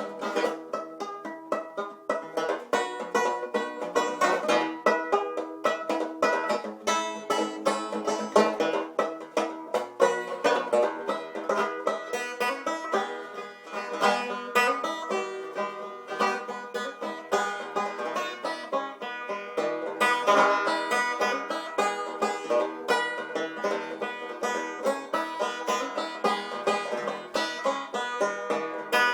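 Background music: bluegrass-style banjo picking, with quick plucked notes.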